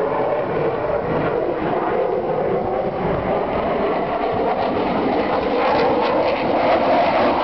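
Fighter jet's engine noise, a steady loud rush as the jet flies past, growing louder over the last couple of seconds.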